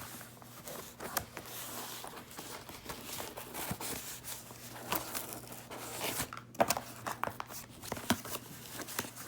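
Cardboard shipping box being pried and worked open by hand: scattered crinkling, rustling and sharp clicks, with a cluster of louder clicks about two thirds of the way through.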